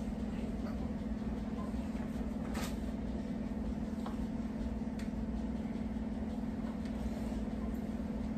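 Steady low hum of a kitchen appliance, with a few faint light taps as frozen curly fries are laid onto a casserole in a baking dish.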